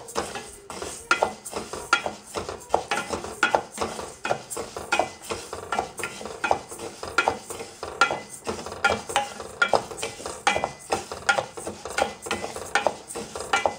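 Split moong dal dry-roasting in a stainless steel saucepan, stirred with a wooden spatula: the dry grains swish and rattle against the metal in a steady rhythm of about two strokes a second.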